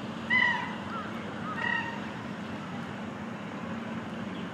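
Two short, high-pitched chimpanzee calls, about a second and a half apart, over a steady low hum.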